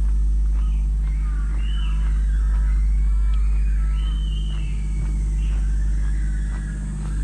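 Steady low rumble on a walking camera's microphone, with birds calling in short chirps that glide up and down, and footsteps on asphalt ticking about twice a second.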